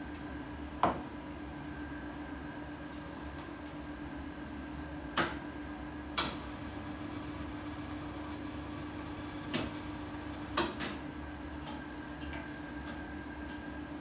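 A steady low hum with five sharp knocks and clinks spread through it. The first, about a second in, comes as a metal milk jug is set down on a steel counter.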